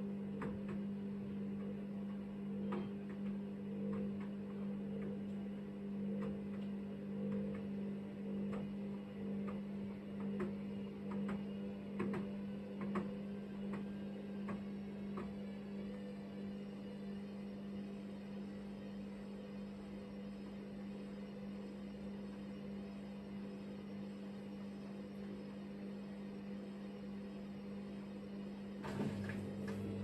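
Hoover DynamicNext washing machine in its drain-and-spin stage: the drain pump hums steadily while the drum turns with two pillows inside, giving scattered light knocks and ticks in the first half. Near the end the drum motor cuts in with a lower hum as the drum begins speeding up toward the 800 rpm spin.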